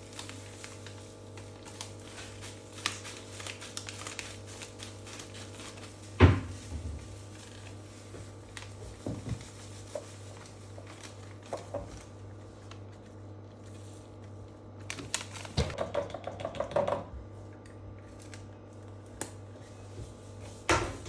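Objects being handled in a kitchen: scattered light clicks and taps, a sharp knock about six seconds in, and a run of clattering about fifteen seconds in, over a steady low hum.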